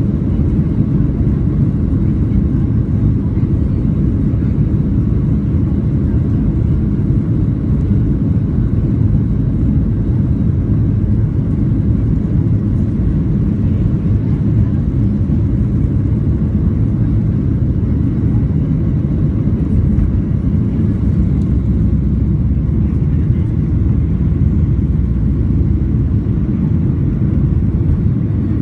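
Cabin noise of a Boeing 737-800 on its takeoff roll and climb-out: the CFM56-7B engines at takeoff thrust make a loud, steady, deep rumble, heard from inside the cabin over the wing.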